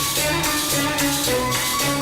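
Instrumental music: a melody over a steady percussion beat of about four strikes a second, with jingling hand percussion.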